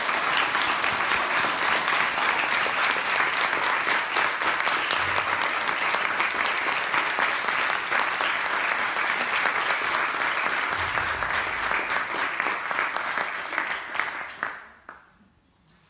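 Audience applauding: steady, sustained clapping from a seated crowd in a hall, dying away near the end.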